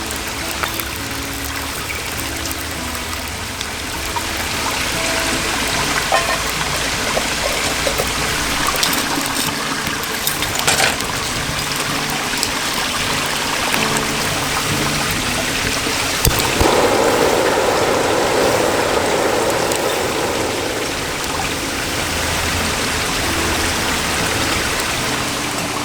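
Mountain valley stream flowing over rocks, a steady water sound that grows fuller for a few seconds past the middle, with a few sharp clicks.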